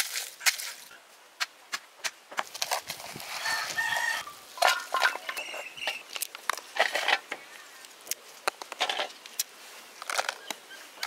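Chickens clucking, with a rooster's call a few seconds in, over many sharp clicks and knocks.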